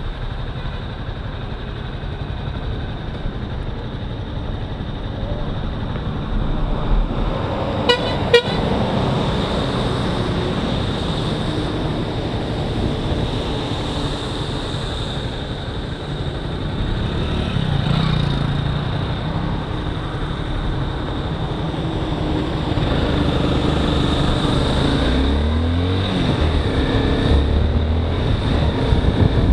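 Single-cylinder sport motorcycle riding through traffic on a wet road: steady engine, tyre and wind noise, with vehicle horns tooting. Near the end the engine's pitch rises and falls as the rider changes speed.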